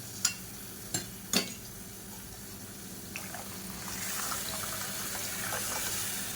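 Water being poured into a pan of rasam base, a steady pouring hiss that builds from about four seconds in. A few light knocks of a vessel or utensil come before it.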